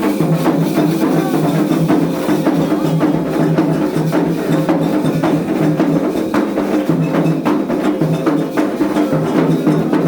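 Percussion-driven music with a dense run of rapid, sharp strokes over a steady low bass line.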